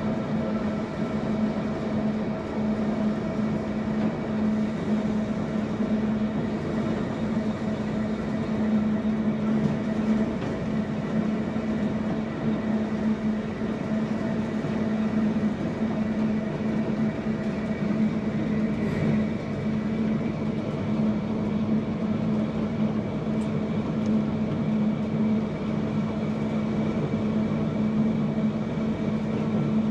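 Manx Electric Railway electric tramcar running steadily along the line, a continuous hum over even wheel-on-rail running noise, heard from the motorman's end of the car.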